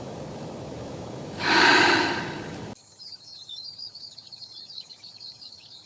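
A steady rush of running water, then a loud breathy whoosh about a second and a half in. The sound cuts off abruptly to a high, steady chorus of chirping insects like crickets.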